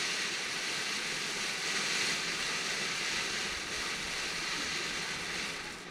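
Firework fountain burning with a steady spraying hiss, which dies away near the end.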